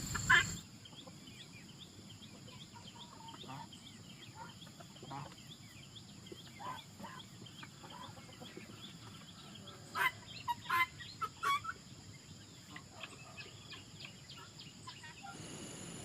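Chickens clucking in short scattered calls, with a louder run of calls about ten seconds in; a steady high tone sits underneath.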